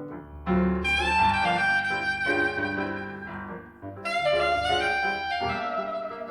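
Soprano saxophone playing two long held notes over jazz piano accompaniment.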